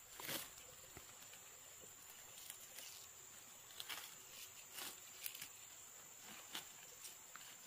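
Faint outdoor ambience: a steady high-pitched tone under a few short rustles or taps, the loudest just after the start and others around four to five seconds in.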